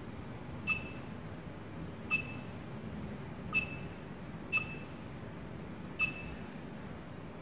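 Bkav SmartHome SH-CT4W four-channel Wi-Fi touch switch panel giving short, identical high beeps, five times at irregular spacing, each confirming a channel being switched from the phone app.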